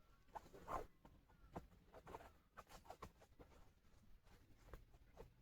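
Near silence: only faint, scattered soft clicks and rustles.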